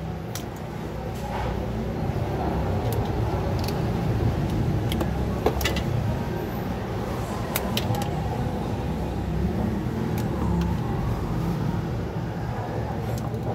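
Steady low vehicle rumble, with scattered small metallic clicks of pliers and crimp terminals being worked on wires.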